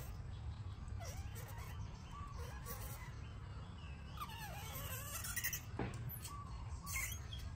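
Young macaque monkeys whimpering and squealing in short cries that bend up and down in pitch, several times, thickest about four to five seconds in, over a steady low rumble.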